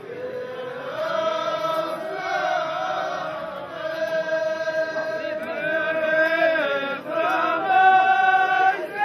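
Group of men chanting a sung verse of Tashelhit Amazigh poetic song (tanḍḍamt), several voices holding long notes and sliding between pitches.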